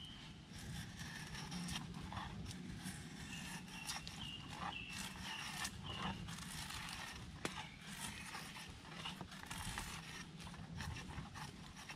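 A bushcraft knife pulled two-handed along a branch like a drawknife, shaving off wood in repeated short scraping strokes with small clicks and snaps.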